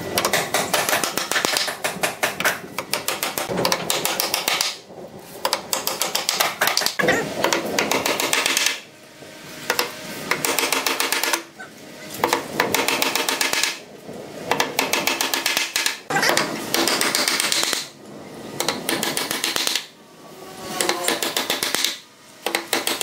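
Claw hammer striking a steel hinge plate on the edge of a wooden door, setting it in its recess, in runs of quick taps separated by short pauses.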